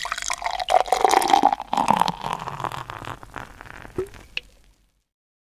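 Sound effect over the closing logo: about five seconds of crackly, clicking noise with some pitched tones and a short rising tone near the end, closing on a sharp click before cutting off.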